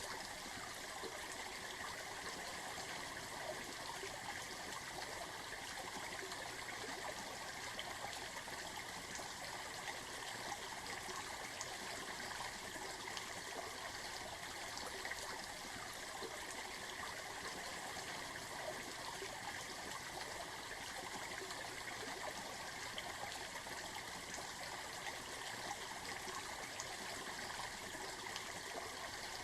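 Steady running water, a stream flowing with no break.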